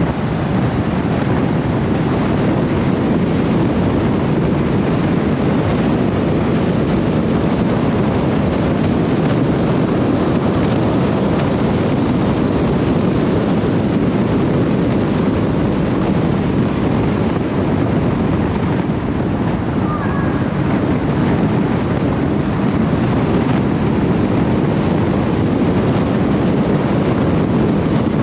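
Steady road and wind noise from a car driving at speed, with wind rumbling on the microphone.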